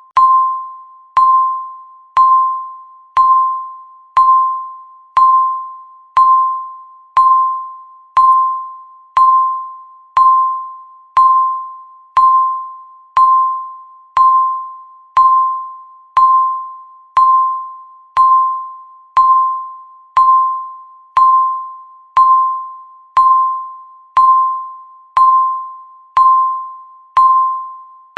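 Countdown timer's per-second tick sound: a single bell-like ding on one steady pitch, struck once every second, each fading away before the next.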